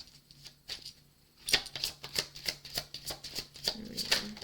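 A deck of tarot cards being shuffled by hand: a run of quick card flicks and snaps, sparse at first and then coming several a second from about a second and a half in.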